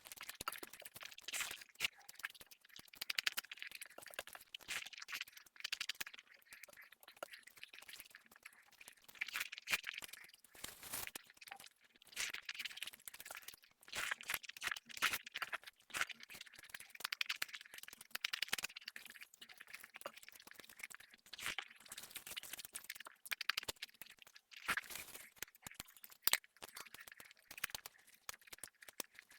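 Eating sounds: food being chewed, with many crisp clicks and crackles coming in irregular runs of a second or two with short pauses between.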